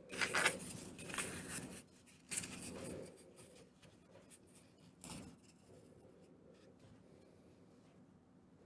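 Hands handling a curved foam piece, rubbing and creasing it around a shiny ball as it is fitted on, in two short rustling bursts in the first three seconds and a brief one about five seconds in.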